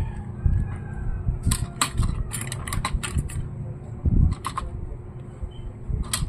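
Hands working on laptop parts and tools: a scattered run of sharp clicks and light knocks, with low rumbling handling noise underneath.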